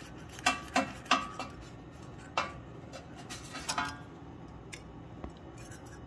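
Steel hand tools clicking and clinking against the valve rocker adjuster of a Briggs & Stratton engine while the exhaust valve clearance is set with a feeler gauge. It is a handful of scattered sharp metallic clicks with a short ring, several in the first second and a half and a few more later.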